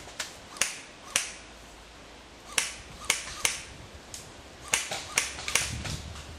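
Airsoft guns firing single shots: about nine sharp cracks at uneven intervals, some followed by a brief ringing tail.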